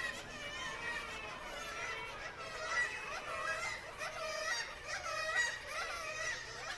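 Many birds calling at once: overlapping honking calls, steady throughout.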